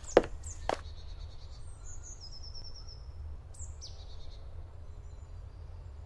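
Songbirds chirping in a forest, with a quick trill of repeated, falling notes and a few short high calls, over a steady low background rumble. Two short thuds come in the first second.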